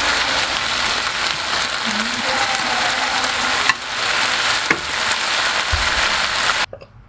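Beef and green beans stir-frying in a hot pan: a steady sizzle with two sharp clicks a second apart near the middle. It cuts off abruptly near the end.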